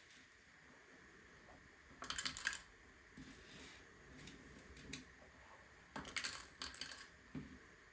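Small plastic LEGO pieces clicking and clattering as they are handled and pressed together: two quick flurries of clicks, about two seconds in and again about six seconds in, with a few single clicks between.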